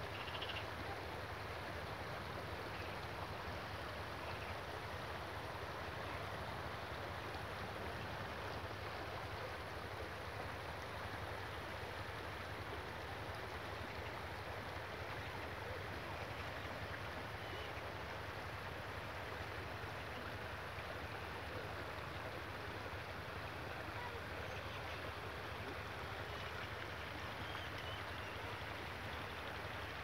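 Flowing river water: a steady, even rush with no breaks.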